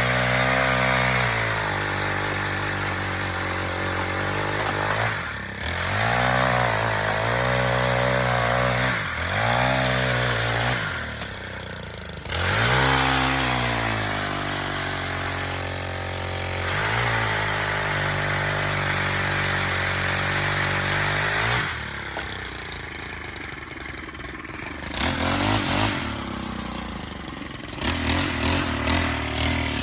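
Gas-engine chainsaw running at high revs while cutting a tree limb, its pitch sagging and climbing back several times as it loads up and frees; the saw stops about 22 seconds in.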